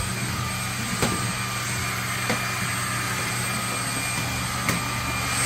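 Cordless stick vacuum's brushless motor running steadily with a constant whine, with a few light clicks about one, two and a half, and four and a half seconds in.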